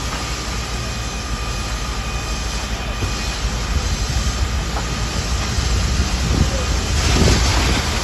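A large building fire being hosed down: a loud, steady rushing roar with a deep rumble, from the flames and the water jets, with wind buffeting the microphone. A faint steady whine runs under the first half, and the roar swells louder near the end.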